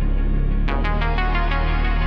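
Synthwave music: sustained synthesizer pads over a steady bass, with a quick run of plucked synth notes entering about two-thirds of a second in.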